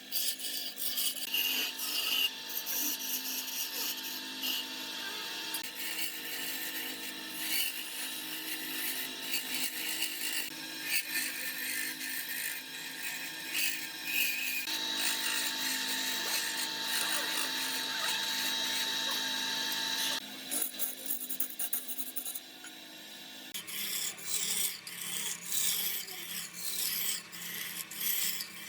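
Woodturning on a wood lathe: a tool scraping and rasping against the spinning wood. The texture changes abruptly several times, and in parts a faint steady whine sits under the scraping.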